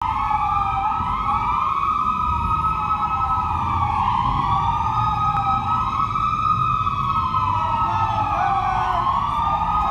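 Several police patrol car sirens wailing at once, their slow rising and falling tones overlapping out of step with each other, over a low rumble of vehicle engines.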